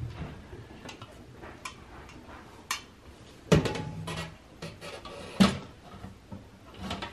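Stainless steel milk pail and its lid clanking against the pasteurizer tank as the pail is settled onto its brackets and the lid is fitted. A scatter of sharp metal knocks, the loudest about halfway through and again a couple of seconds later.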